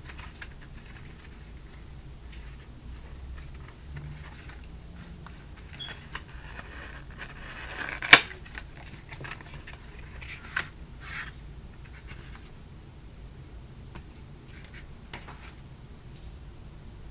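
Cardboard and paper packaging of a PanzerGlass screen protector being opened and handled: scraping and rustling with scattered light clicks. A sliding scrape builds about seven seconds in and ends in one sharp click, the loudest sound.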